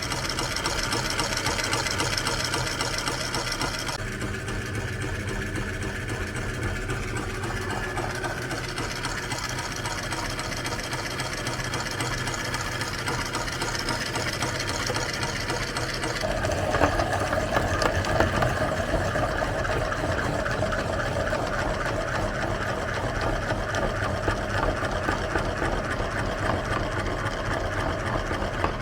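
Meat grinder running steadily as it grinds ice cream bars. Its sound changes about four seconds in and again a little past halfway.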